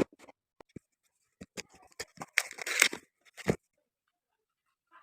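Parcel packaging being torn open and handled: scattered clicks and taps, a longer tearing rasp about two and a half seconds in, then a single knock.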